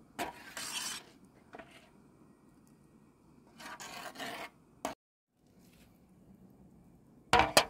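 A metal spoon scraping thick red sauce out of a metal pan in two short rasping strokes, with a sharp click midway and a couple of loud sharp knocks near the end.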